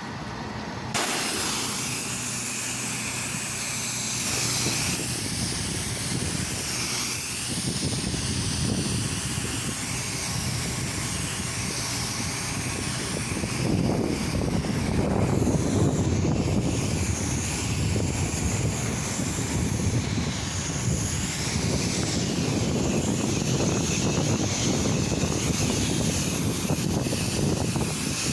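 Pressure washer spraying: the steady hiss of the high-pressure water jet on a surface over a machine's hum, starting abruptly about a second in.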